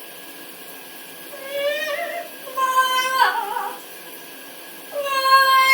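Pet parrot giving three drawn-out, wavering calls, the last one the loudest.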